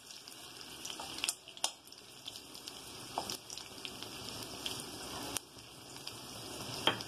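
Chopped ginger and curry leaves frying in a little hot oil in a kadai: a steady sizzle broken by a handful of sharp pops and clicks, with a metal spatula stirring them.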